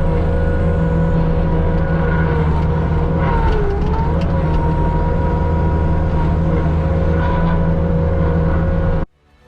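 Machinery running steadily: a deep drone with a higher whine that dips briefly in pitch about three and a half seconds in. It cuts off abruptly near the end.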